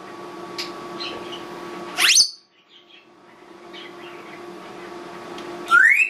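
Congo African grey parrot whistling: a quick upward-sweeping whistle about two seconds in and a rising whistle near the end, with a few faint short chirps between, over a steady background hum.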